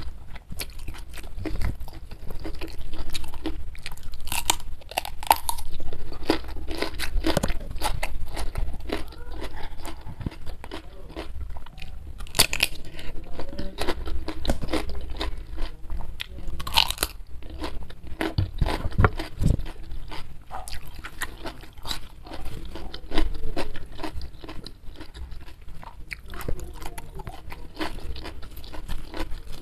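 Close-miked chewing and crunching of a mouthful of rice, spicy dried beef, raw cucumber and fresh greens: steady wet chewing with a handful of loud, sharp crunches.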